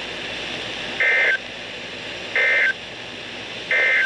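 Three short bursts of Emergency Alert System (SAME) digital data tones, about a second and a third apart, over a steady hiss. These are the end-of-message code closing a National Weather Service severe thunderstorm warning.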